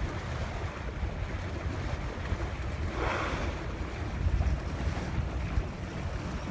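Wind buffeting the microphone over open water, with waves washing by and a brief louder rushing hiss about three seconds in.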